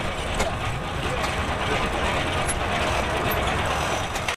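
Portable sawmill running under the power of a Case steam engine: a steady mechanical running noise.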